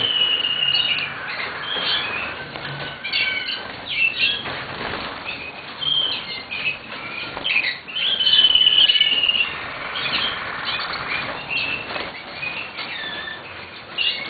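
Waterslager (Malinois) song canary singing. Long, level whistled notes alternate with runs of quick rising and falling notes.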